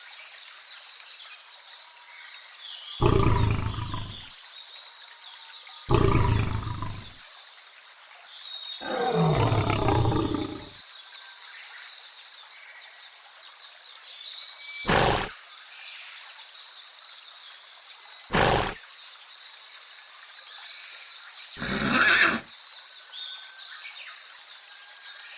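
A series of six loud snore- and roar-like sounds, three of them a second or two long and three shorter, each separate, over a steady background hiss. Among these animal-like roars and growls is a man's very loud snoring, set among the others as the one to pick out.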